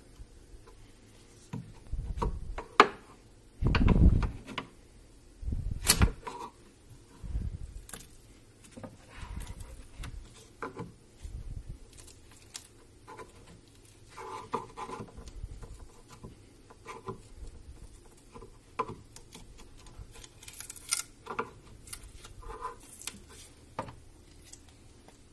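Handling noise of a wooden workpiece being pried up and lifted off a taped-down machine bed: irregular knocks, clicks and scrapes, the loudest a few seconds in.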